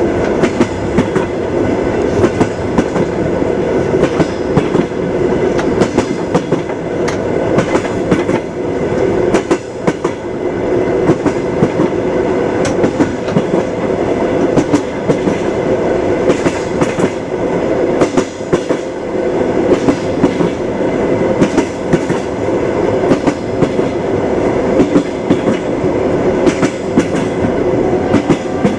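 Railway carriage running along the track: a steady rumble with the frequent clickety-clack of the wheels knocking over the rail joints.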